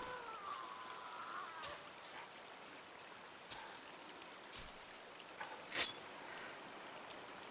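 Quiet forest ambience from a film soundtrack: a faint steady hiss with a few small clicks and snaps, the sharpest about six seconds in. A faint wavering tone is held over the first second and a half.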